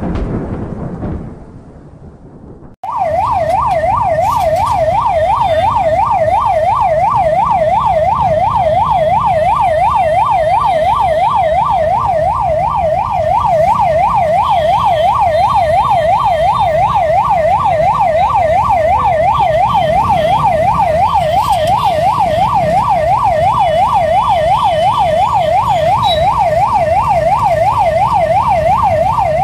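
Ambulance siren sounding in a fast, steady up-and-down warble, cutting in suddenly about three seconds in after a short fading sound and a moment's hush, over a low rumble of traffic.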